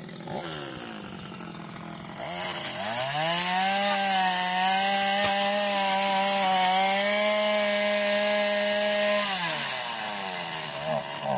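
Two-stroke petrol string trimmer idling, then revved to full throttle about two seconds in and held there for roughly seven seconds while cutting young woody growth, before the revs drop back to idle near the end.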